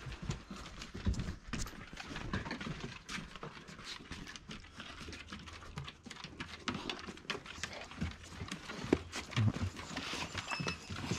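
Dogs chewing and crunching raw chicken heads: a run of irregular wet cracks and clicks as the bones and beaks break.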